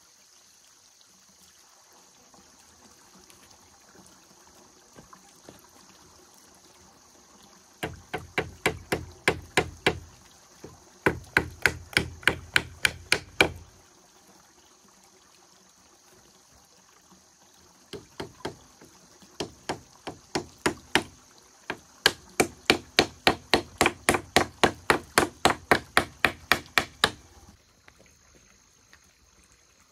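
Rapid, evenly spaced sharp strikes on bamboo, about four or five a second, in four runs of a few seconds each with short pauses between, as bamboo is chopped or worked by hand for a wall.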